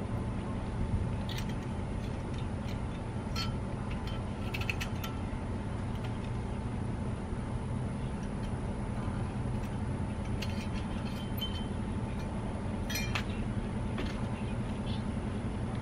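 Light metallic clinks and taps of a disc-brake caliper and its hardware being handled and fitted on a car's wheel hub, coming in scattered clusters, over a steady low background hum.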